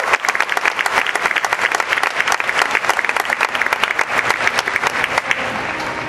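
Large arena audience applauding, the clapping thinning out near the end.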